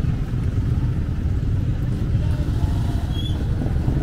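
Motorcycle and motorcycle-tricycle engines running close by on a busy market street, a steady low rumble, with faint voices near the end.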